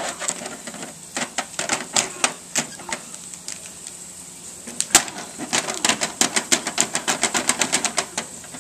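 Plastic wrestling action figures clacking against each other and tapping on the toy ring's mat: scattered sharp clicks, then a fast run of about six clicks a second from about halfway through.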